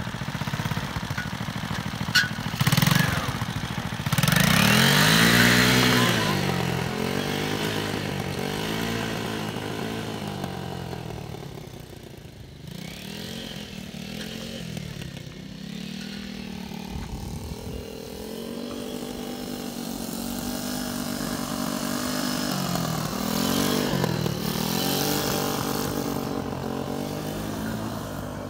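Homemade go-kart's small engine running and revving up and down again and again as the kart drives across a field, loudest about four to six seconds in.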